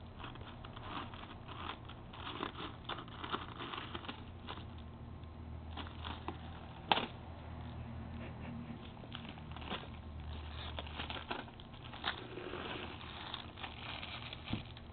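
Rustling and crinkling of plastic Easter grass and cellophane wrappers as a toddler rummages through an Easter pail, with scattered light clicks and one sharp knock about halfway through.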